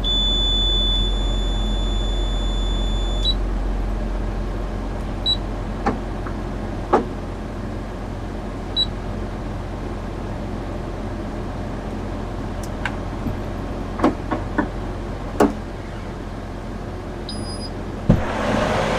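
Truck reefer temperature control unit (TCU) alarm: a steady high-pitched electronic beep that cuts off about three seconds in, then two short chirps, over a low steady engine hum with scattered clicks.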